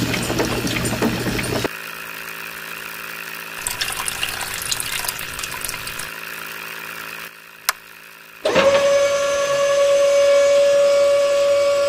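A small DC gear motor driving a toy string winch starts suddenly about two-thirds of the way in and runs with a steady whine. Before that come rough scraping and rattling noises, then a few scrapes and clicks.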